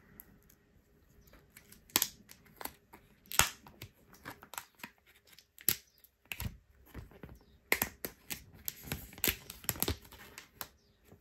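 Thin plastic protective film being pulled off a new smartphone, crinkling and tearing in irregular spurts with sharp clicks.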